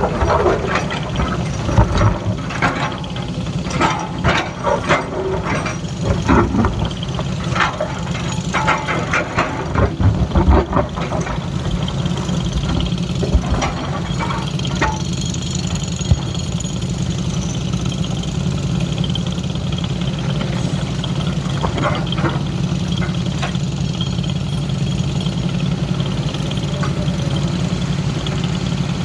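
Excavator diesel engine running steadily, with a run of irregular knocks and clatters over it for roughly the first twelve seconds, after which only the steady engine sound goes on.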